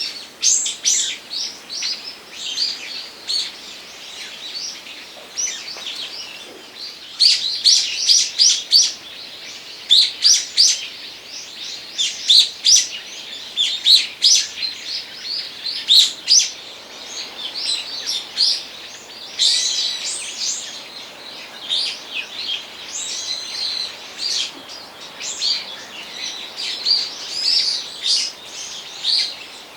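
Several small songbirds chirping and twittering, quick high notes overlapping one another in a busy chorus.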